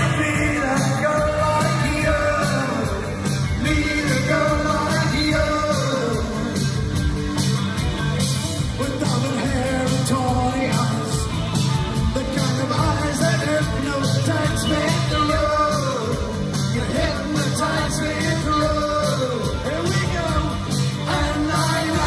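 Live 1980s new-wave rock band playing through a venue PA: a male lead vocal over synthesizer keyboards, electric guitar and drums with a steady beat.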